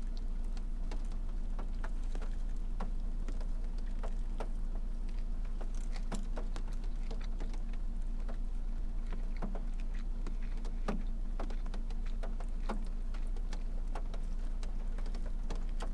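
A person biting into and chewing a burger inside a car: scattered soft mouth clicks and smacks over a steady low hum.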